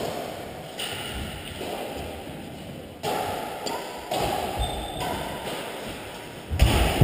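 Badminton rally in an echoing sports hall: sudden knocks of rackets hitting the shuttlecock and thuds of players' feet on the court, each trailing off in the hall's echo, the loudest near the end.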